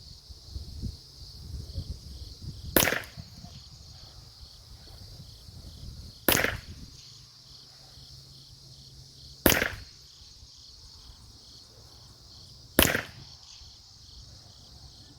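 Four single shots from a factory Ruger 10/22 semi-automatic .22 LR rifle firing SK Rifle Match ammunition, spaced about three seconds apart. Under them runs a steady high insect buzz, with low wind rumble on the microphone.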